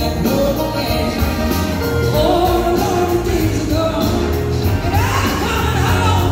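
Live rock band with a horn section playing, a woman singing lead over electric guitar, bass and drums, heard from among the audience.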